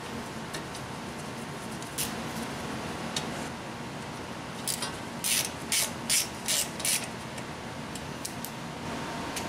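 Hand ratchet wrench clicking while a brake line bracket bolt is run in on a front strut. A few scattered clicks, then a run of about seven clicks over two seconds a little past the middle.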